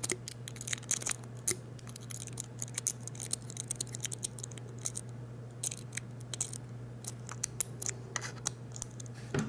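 A rake pick scraping and clicking quickly and irregularly against the pin tumblers in a Master Lock padlock's keyway as it is raked to open it. A steady low hum runs underneath.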